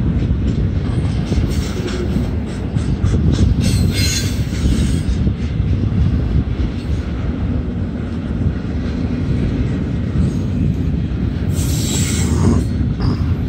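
Double-stack intermodal container cars of a slowing freight train rolling past, a steady low rumble of wheels on rail. Brief high-pitched wheel squeals come about four seconds in and again near the end.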